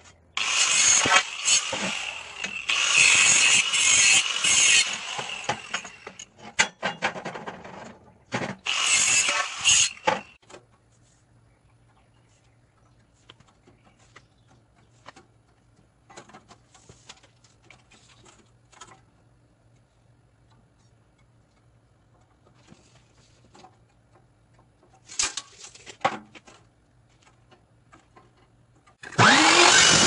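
Corded angle grinder grinding on rusty steel tubing in bursts for about ten seconds, then stopping. Faint clinks of the tubing being handled follow, and about a second before the end a metal-cutting chop saw starts up loudly.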